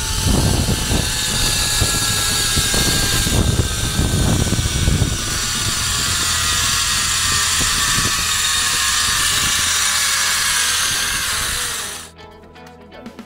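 Zipline trolley pulleys running along the steel cable with a high whine that slowly falls in pitch, over wind buffeting the microphone for the first five seconds or so. It cuts off near the end.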